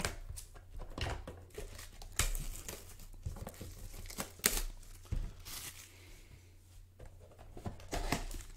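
Packaging of a Bowman baseball card Mega Box being torn open and crinkled by hand: irregular rips and rustles, with sharper tears about two and four and a half seconds in.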